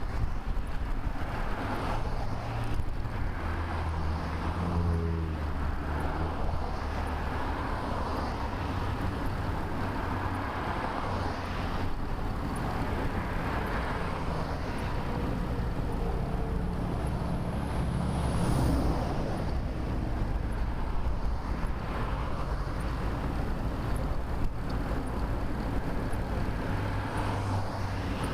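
Road traffic from a moving bicycle: motor vehicles passing with a steady engine hum and tyre noise, swelling as vehicles go by about four seconds in and again near the two-thirds mark.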